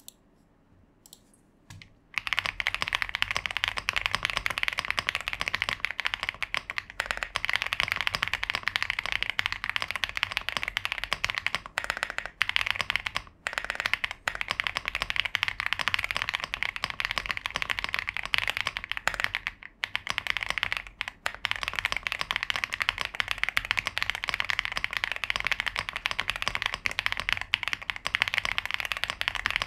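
Fast, continuous typing on an ILovBee B87 TKL mechanical keyboard, a hot-swap board with a polycarbonate plate and leaf-spring gasket mount. It starts about two seconds in and has a few brief pauses.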